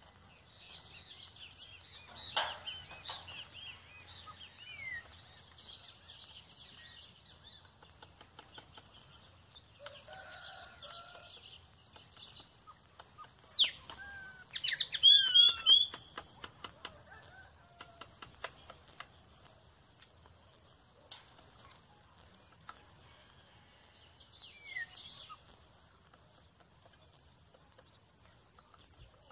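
A woodpecker hammering its bill on a tree: a few single knocks, then about halfway through a run of sharp knocks, several a second, thinning out. Other birds chirp and call throughout, loudest just as the run of knocks begins.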